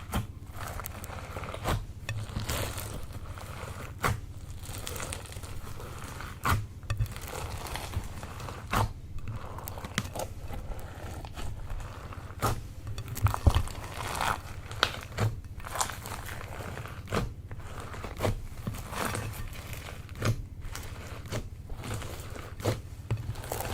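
Slime being squished and worked by hand, giving irregular sharp clicks and pops about once a second over a soft, steady rustle.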